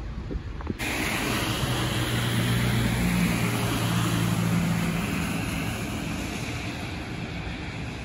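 A car drives past on a wet, slushy road: tyres hissing through the slush over a low engine hum. The sound swells to a peak and fades over a few seconds, with wind noise on the microphone.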